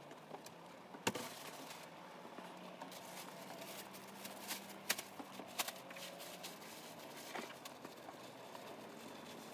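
A few sharp clicks and light knocks from people eating at a table, over a low steady background. The loudest comes about a second in, with two more near the middle.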